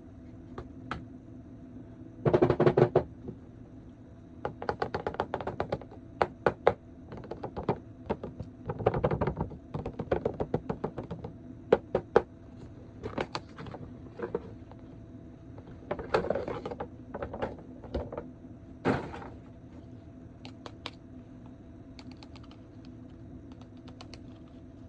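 Hands handling a plastic action figure and its packaging: irregular clusters of clicks, taps and short scraping rustles, over a faint steady hum.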